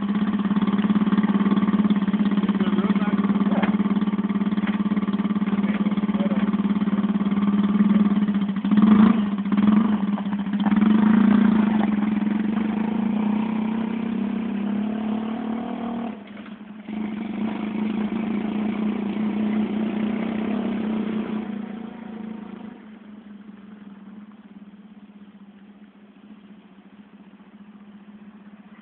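Small engine of a homemade two-seat trike running with a steady drone, revving a few times about a third of the way in, then fading as the trike drives away.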